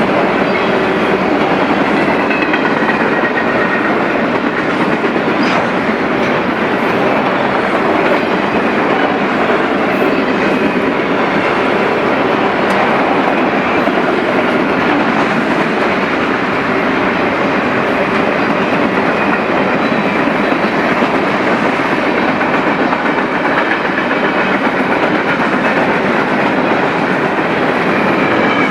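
Freight train cars rolling past at close range, with a steady, loud rumble of steel wheels on rail and clickety-clack from the rail joints.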